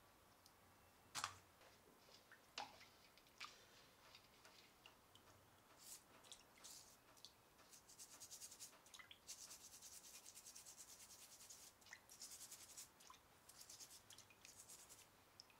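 Faint scratchy rasping of a small plastic brush scrubbing a crawfish's shell in quick back-and-forth strokes, running for most of the second half. A few sharp clicks come first.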